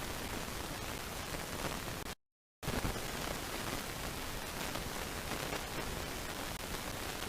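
Steady static-like hiss with no distinct calls in it, cutting out to complete silence for about half a second just after two seconds in, then resuming.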